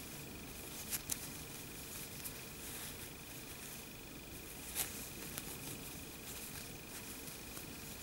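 Faint rustling of yarn being worked with a metal crochet hook, with a few soft clicks about a second in and again near the middle. A faint steady high-pitched hum lies underneath.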